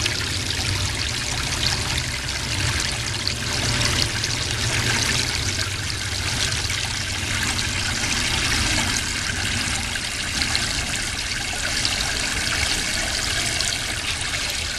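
Water spraying from a hose nozzle into a Weber Smokey Mountain's metal water pan, splashing steadily as the pan fills.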